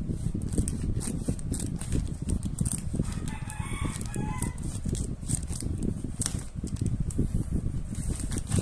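Thin plastic courier pouch crinkling and rustling as it is cut open and pulled apart by hand, with rubbing noise from the handling. A rooster crows once, about three seconds in.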